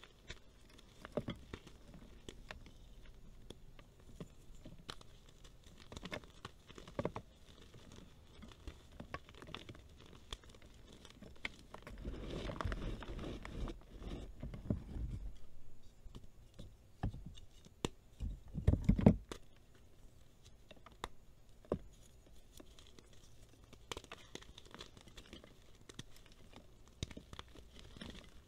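Hands crushing and crumbling dried reformed gym chalk into powder: scattered soft crunches and crackles, with a longer stretch of heavier crushing about halfway through and the loudest crunches about two-thirds of the way in.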